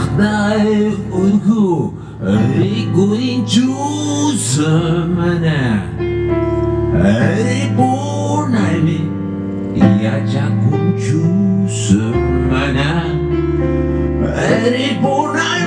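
Live band playing a blues arrangement of an Andean huayno: a lead line of sliding, bending notes over held keyboard and bass chords.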